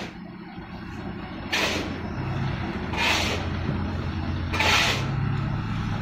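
Crane truck's diesel engine running and revving up as its truck-mounted crane takes the load of a car, with three short hisses of air about a second and a half apart.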